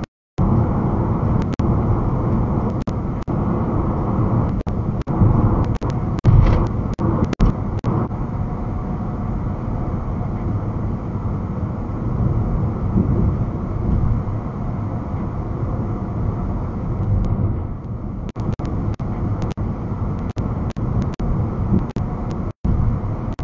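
Steady road, tyre and engine noise from a car cruising at expressway speed, heard from inside the cabin through a dashcam's microphone. The sound cuts out briefly twice.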